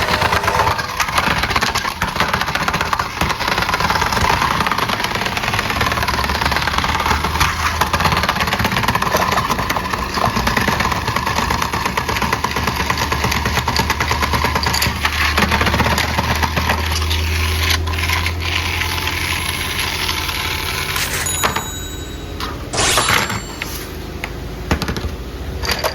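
Small battery-powered toy motor and plastic gears running, with a steady whirring rattle and a low hum through the middle, and a few clicks near the end.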